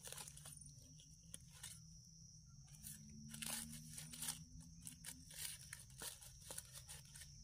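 Faint, irregular crunching and scraping of a knife blade cutting into soil and dry leaf litter to dig out mushrooms.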